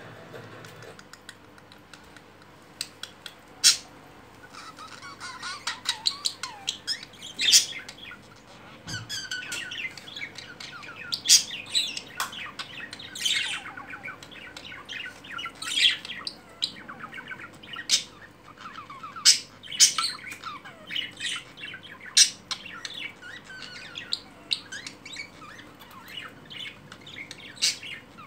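Budgerigars chattering in a courting pair: a warbling run of chirps and short, sharp squawks. It starts sparsely and thickens about five seconds in.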